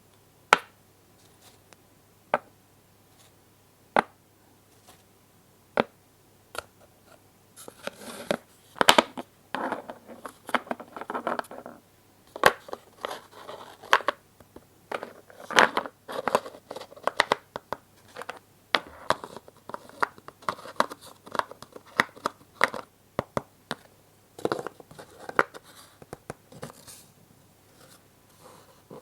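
Small wooden toy pieces clicking and knocking as they are handled and set down. A few separate clicks at first, then from about a quarter of the way in, rapid clicks mixed with rustling and scraping.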